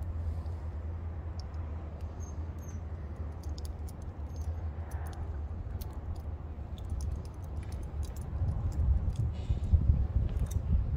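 Wind buffeting the microphone, a steady low rumble that turns gustier and louder for the last few seconds. Light scattered metal clicks come from a grease-gun quick coupler and hose fitting being handled.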